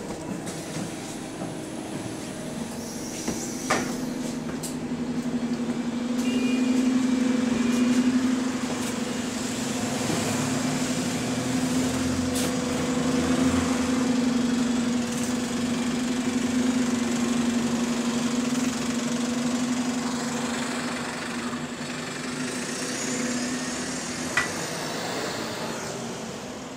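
A red single-decker bus's engine running with a steady drone beside the camera, then fading near the end as the bus moves off. A few sharp clicks are heard early on and near the end.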